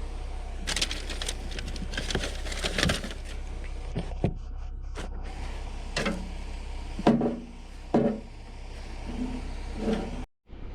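Scattered knocks and clatter of items being handled, over a steady low hum, with a few short pitched sounds near the middle and a brief dropout near the end.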